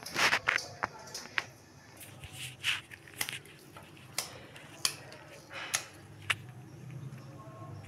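Small kitchen knife slicing through an onion held in the hand, a string of irregular crisp cuts, with a louder cluster of knocks in the first half second.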